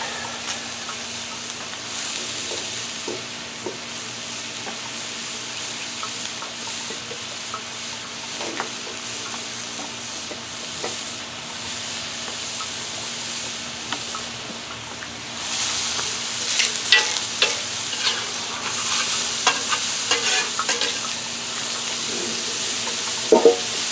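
Chopped onion and garlic sizzling steadily on a hot homemade flat-top griddle. About two-thirds of the way in, the sizzle gets louder and crackles, with sharp ticks, as riced cauliflower is tipped onto the griddle from a steel bowl.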